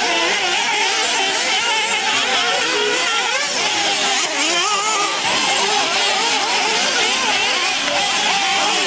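Several nitro RC buggies' small two-stroke glow engines whining at once. Their overlapping pitches keep rising and falling as the cars rev and back off around the dirt track.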